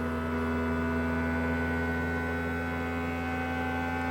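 Qidi X Plus 3 3D printer running its input-shaper resonance test: the stepper motors vibrate the print head at a steadily increasing frequency, giving a steady hum of several tones that slowly rise in pitch.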